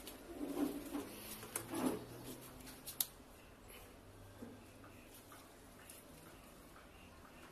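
A few soft taps and rustles, then a sharp click about three seconds in, followed by faint steady hiss.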